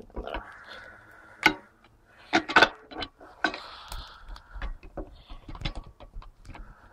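Handling noise from a hand-held camera: irregular light clicks and knocks, a few louder ones about one and a half and two and a half seconds in.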